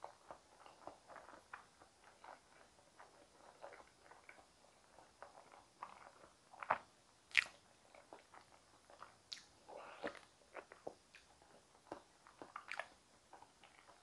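Close-miked mouth sounds of chewing soft steamed potato: small wet clicks and smacks at an irregular pace. A little past the middle come a few louder sharp clicks and gulps as tea is sipped from a glass cup, and the chewing resumes.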